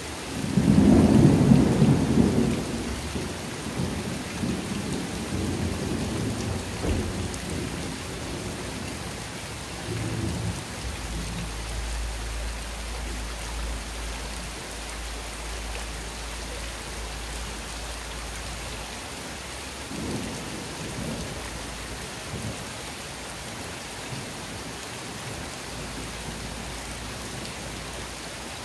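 Rain falling steadily on a courtyard and its potted plants, with a loud rumble of thunder right at the start that fades over several seconds, and a fainter rumble about twenty seconds in.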